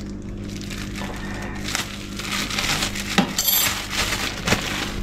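Thin plastic bag crinkling and rustling as it is picked and worked open by hand, with a couple of sharp clicks, over a steady low hum.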